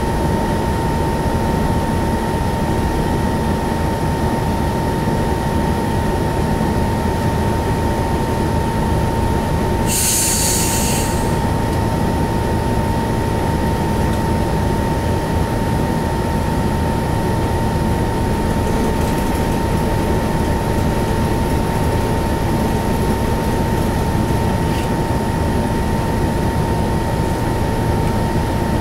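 Hino Blue Ribbon HT bus's 9.9-litre M10U diesel engine idling while the bus stands still, heard from inside the cabin, with a steady high whine over it. About ten seconds in, a hiss lasts about a second.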